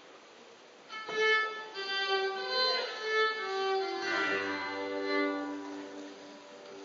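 Fiddle playing a melody of held, changing notes, starting about a second in. A low bass note joins about halfway through.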